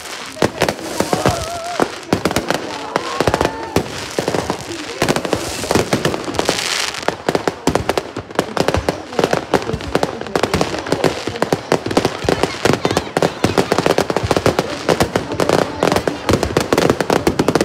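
Fireworks going off in a rapid, continuous string of bangs and crackles. There is a hissing crackle about six seconds in, and the bangs come even thicker and faster from about eight seconds on.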